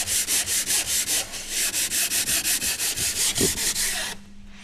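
Sanding block rubbed quickly back and forth along the edge of a wooden wedge block, about five strokes a second, putting a slight bevel on it. The strokes falter briefly just after a second in and stop about four seconds in.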